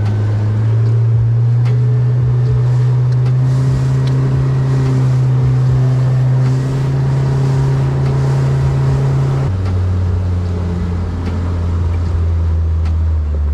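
A small fishing boat's engine running steadily under way, over a rush of wind and water. About two-thirds of the way through, the engine note steps down to a lower pitch as the throttle is eased back, and it drops again near the end.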